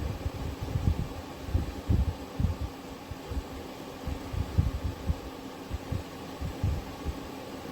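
Steady low hum with irregular low thuds several times a second.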